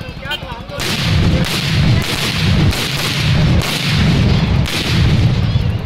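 A long string of firecrackers going off as a dense, rapid crackle of bangs. It starts about a second in and swells louder and softer in waves.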